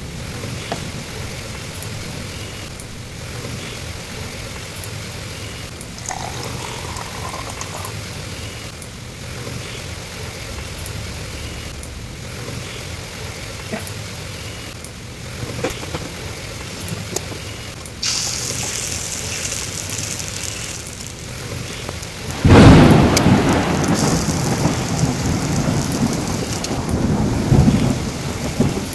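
Steady rain with thunder. A loud, sudden thunderclap comes about three-quarters of the way through and rumbles on for several seconds.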